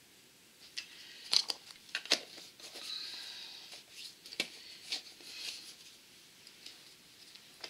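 Handling sounds on a craft table: scattered light clicks and taps with soft rustling, as a wooden stir stick is set down and a disposable glove is pulled from its box.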